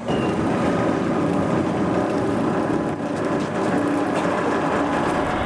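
Heavy machinery running with a steady rumble and clatter.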